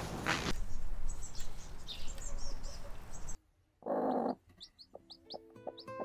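Garden ambience with small birds chirping for about three seconds. After a sudden cut comes one short low call from a broody hen, then a string of quick, high, rising peeps from a chick.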